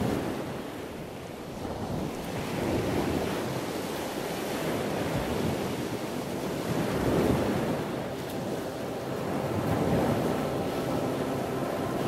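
Rushing, surf-like noise with no tones, swelling and easing every few seconds like waves breaking.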